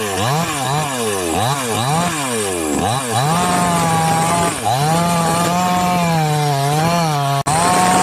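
Petrol chainsaw revving up and down about twice a second, then held at high revs with a slight waver. The sound breaks off for an instant near the end.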